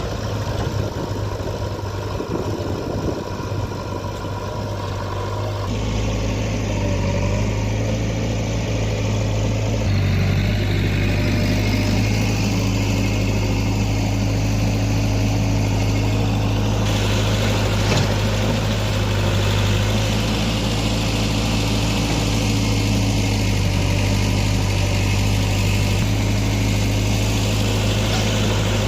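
Heavy diesel engine of digging machinery running steadily with a low hum, changing in tone a few times.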